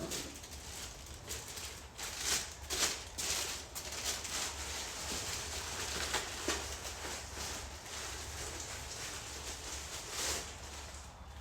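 Rustling and handling noises, with a few sharper knocks and crinkles, as a new transmission filter is taken from its packaging and handled. A faint steady hum sits under it.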